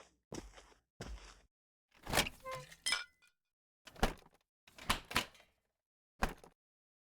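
Cartoon sound effects: a string of short knocks and clatters with silent gaps between them, and a few brief squeaky tones mixed in about two to three seconds in.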